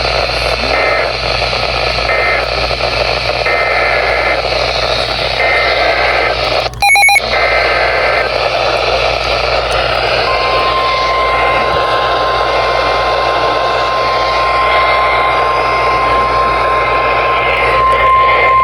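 Weather radio reception full of static hiss, with short on-off bursts of data tones in the first seven seconds, a brief loud blip near 7 s, then the NOAA Weather Radio warning alarm tone starting about 10 seconds in and holding steady at one pitch. This sequence marks the start of a new severe weather warning broadcast.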